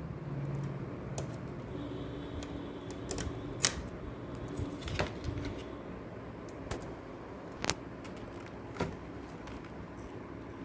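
Small metal construction-kit parts and tools being handled: a series of irregular sharp clicks and light clinks as pieces, nuts and bolts are fitted.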